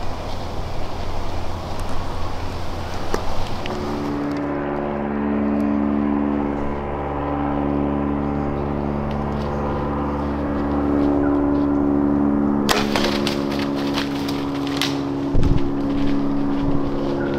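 A steady outdoor rushing noise, then from about four seconds in sustained low chords of background music that change every few seconds. In the second half come rustling clicks of the camera being handled as it pans, with a single low thump near the end.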